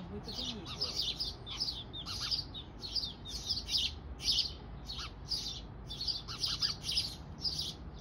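Nestling birds inside a birdhouse begging, a steady run of high-pitched chirps two or three a second, while an adult clings at the entrance hole.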